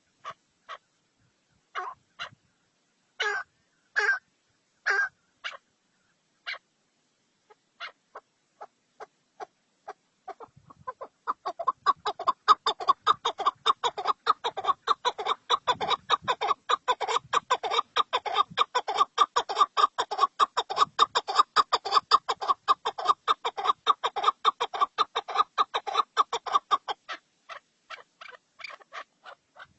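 A fowl-like bird calling: a few separate short calls at first, then, from about eleven seconds in, a long fast run of short clucking notes that thins out near the end.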